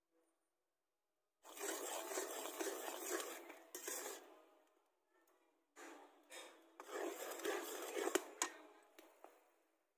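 Metal spatula scraping and stirring around a large iron karahi of sugar and water being cooked into syrup, in two spells, with a couple of sharp clinks near the end of the second.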